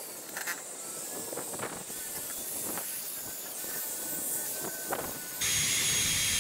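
Handheld power drill with a sanding attachment starting up about five seconds in and running at speed against rusty steel, loud and steady, after a faint hiss.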